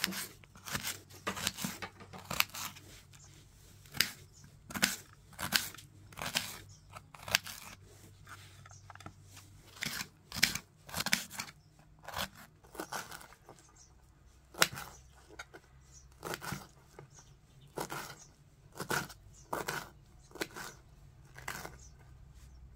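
A small kitchen knife cutting on a ceramic plate: short, irregular clicks and scrapes, one or two a second, as the blade goes through peeled hard-boiled egg and taps the plate, with fresh herbs being cut near the end.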